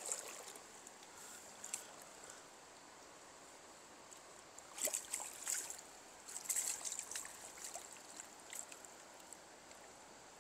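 Water splashing and dripping in two short spells, about five and seven seconds in, over the faint steady run of a river.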